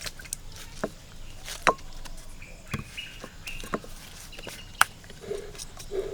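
Sharp chopping strikes, about one a second, with short high calls, likely birds, between them.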